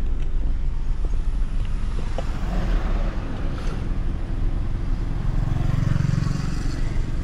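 A car running, heard from inside the cabin: a steady low rumble, with a stronger low hum swelling for a moment about five seconds in.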